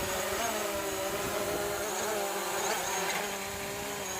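Electric motor of a radio-controlled model aircraft buzzing in flight, its pitch wavering slightly.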